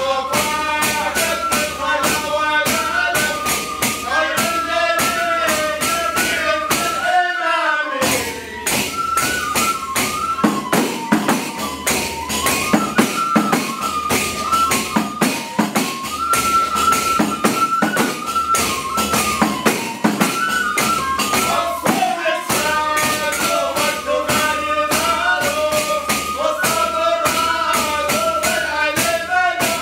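Men singing a traditional Hadrami devotional chant to frame drums with jingles beaten in a steady, dense rhythm. The singing and drumming break off briefly for about half a second around eight seconds in, then resume.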